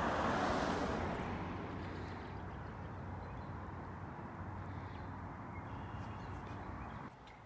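Outdoor background noise: an even hiss that swells in the first second and then fades, over a steady low hum, cutting off abruptly about seven seconds in.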